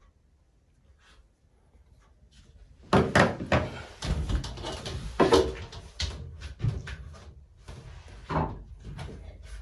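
A run of knocks, clicks and rustling as faucet parts are handled, starting about three seconds in, with the loudest knocks around three and five seconds.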